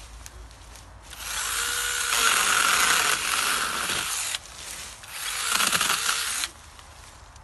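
Campagnola T-Cat battery pruning chainsaw cutting an overhead branch, its motor whining over the chain biting into wood. It runs from about a second in, eases off briefly past the middle, runs again and cuts off suddenly near the end.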